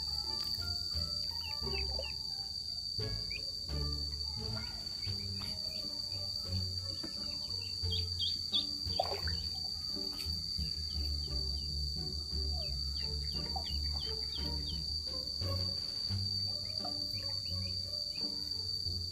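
A steady, high-pitched insect drone over soft background music with held low notes, and scattered short chirps.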